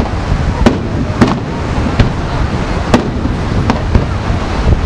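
Fireworks display: about six sharp bangs of aerial shells launching and bursting, irregularly spaced about a second apart, over a steady low rumble.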